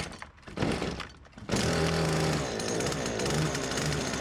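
Husqvarna petrol brushcutter fitted with a saw blade starting up: a couple of short mechanical noises, then the engine catches about a second and a half in and runs steadily.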